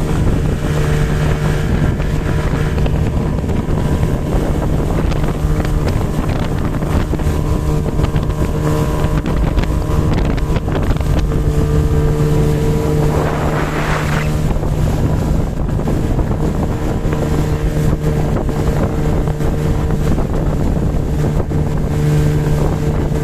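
Motorboat engine running steadily under way, with wind buffeting the microphone. A brief rushing hiss swells and fades about two-thirds of the way through.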